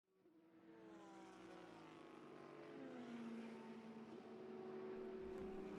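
Soft sustained drone of several held tones, fading in from silence over the first second and slowly shifting in pitch, like an ambient synth pad used as intro music.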